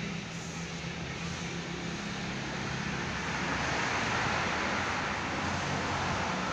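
Road traffic: a car drives past, its tyre and engine noise swelling and fading about four seconds in, over a low steady engine hum.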